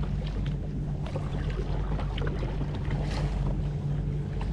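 Steady low rumble from a fishing kayak on the water, with a few faint small clicks and knocks.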